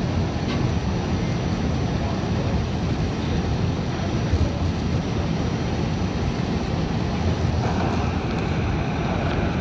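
R46 subway car running at speed through a tunnel: a steady, loud rumble of wheels on rail and running gear, with a faint high whine. From about eight seconds in, the noise takes on a harsher, brighter edge.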